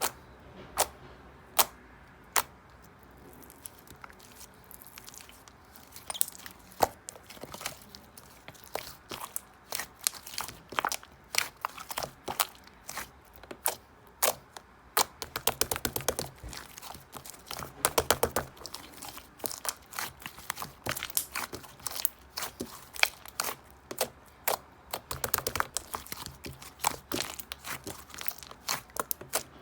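Close-up handling noises: irregular sharp taps and clicks with crinkly rustling, and two quick clattering runs about sixteen and eighteen seconds in.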